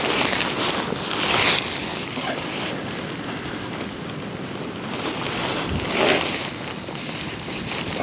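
Strong, gusty wind buffeting the microphone, with tent fabric rustling as it is handled. The noise swells about a second in and again around six seconds.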